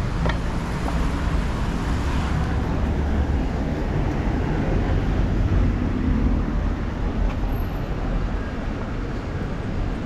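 Street traffic at a city intersection: a steady low rumble of car engines and tyres, swelling a little midway as a car passes close.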